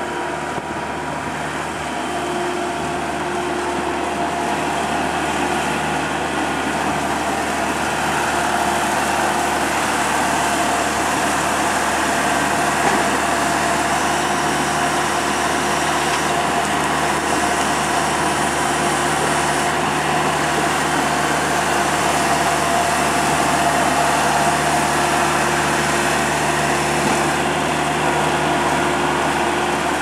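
New Holland LS190 skid steer loader's diesel engine running under load as the machine drives and works its loader arms; it grows louder over the first several seconds and then holds steady.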